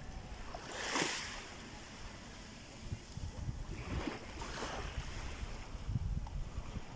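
Sea waves washing in every few seconds, each a rising and falling hiss, over a steady low rumble of wind on the microphone.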